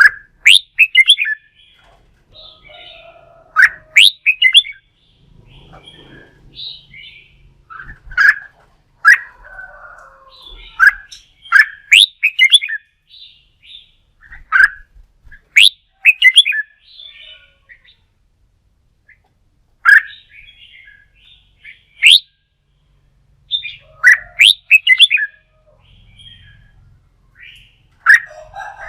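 Red-whiskered bulbul singing its loud fighting song: short phrases of quick whistled notes sweeping up high, repeated every second or two with brief pauses between them.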